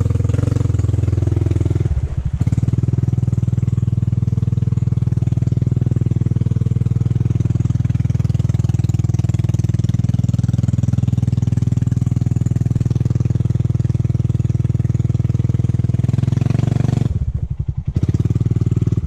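Honda ATV's single-cylinder four-stroke engine running steadily at low speed as it wades through muddy floodwater, its note dropping briefly about two seconds in and again near the end.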